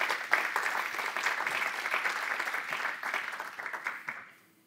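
Audience applauding, many hands clapping at once, dying away near the end.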